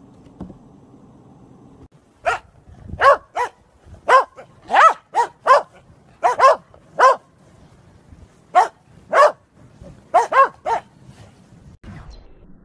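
Corgis barking: about fifteen short, high-pitched barks in quick irregular clusters, starting about two seconds in.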